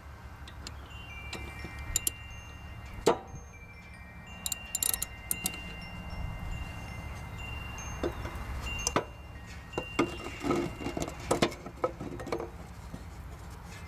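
Wrench and sockets clinking against a steel mower deck and blade while blade nuts are being taken off: scattered sharp metallic clinks, several leaving a short ringing tone, coming thicker in the second half.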